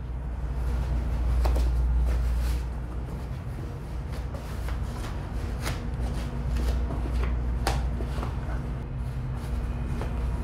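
Rustling and rubbing of an immersion suit's material as it is pulled on and the hood drawn over the head, with scattered sharp ticks, over a steady low hum.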